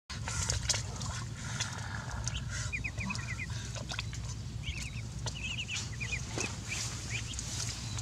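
Young ducklings peeping in quick runs of short high notes, several bursts of them, with scattered clicks and rustles.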